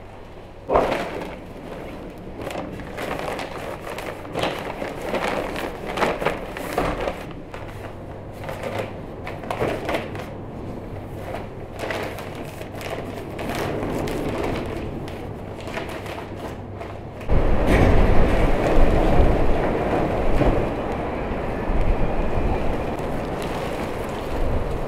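Plastic bags rustling and crinkling as clothes are handled and packed into them, in short irregular bursts. About 17 seconds in this gives way abruptly to a louder, steady rumble and hiss.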